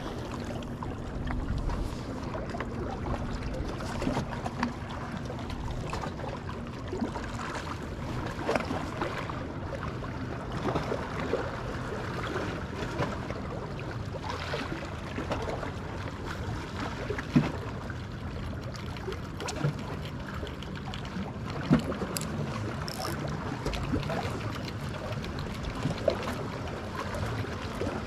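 Small waves lapping against the shoreline rocks, with wind on the microphone and a few light taps and clicks scattered through it.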